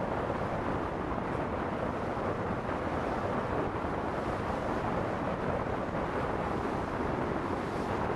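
Steady rushing noise aboard a moving boat: wind buffeting the microphone over the wash of harbour water.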